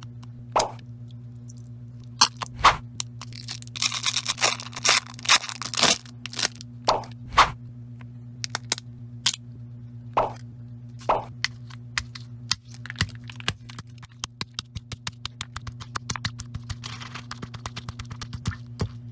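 Candies being handled and crushed in a granite mortar and pestle: scattered sharp clicks, plops and crinkles as gummies and a jelly candy are opened and dropped in, then a fast run of crackling ticks and gritty grinding as the stone pestle crushes them in the second half. A steady low hum runs underneath.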